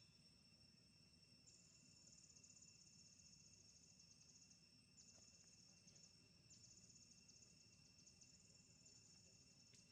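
Faint insects trilling in rapid, high stretches that stop and start again every few seconds, over a steady high-pitched whine.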